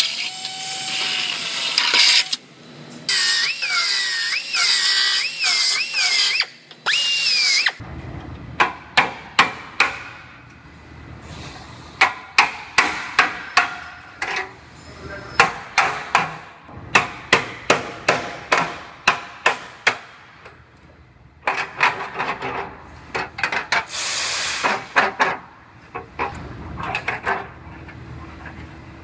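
Milwaukee M18 cordless drill boring into sheet-steel body structure, its whine dipping in pitch and recovering again and again as the bit bites. After about eight seconds it gives way to a long run of sharp hammer strikes on metal, about two a second. Another stretch of drilling comes about three-quarters of the way through, followed by a few more strikes.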